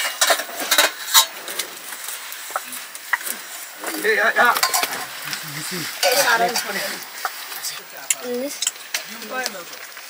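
Food sizzling in a pan while a utensil stirs and scrapes through it, with sharp clinks of metal against the pan in the first second or so.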